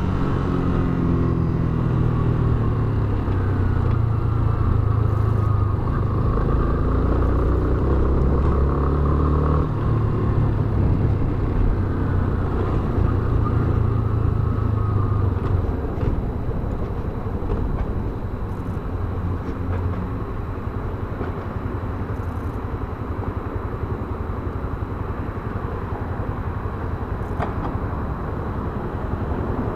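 Yamaha Fazer BlueFlex motorcycle engine running, its pitch rising and falling with the throttle for about the first half. It then settles into a steadier, somewhat quieter rumble mixed with road noise.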